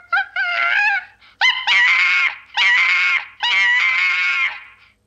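Baby baboon crying in four long, high-pitched wails, each about a second long.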